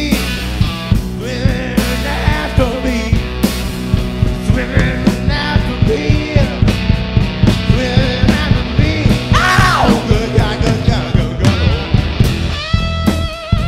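Live blues band playing: electric guitar, electric bass and drum kit keeping a steady beat, with a man singing into the microphone over them.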